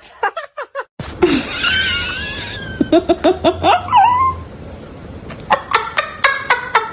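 People laughing in runs of short rapid bursts, with a high wavering cry between the runs.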